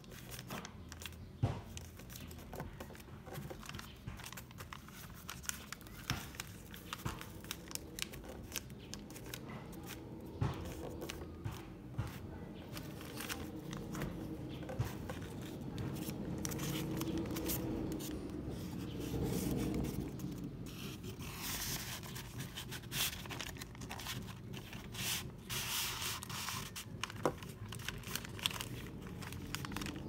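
Paper being handled, folded and creased by hand, rustling and crinkling, with short irregular clicks and scrapes throughout.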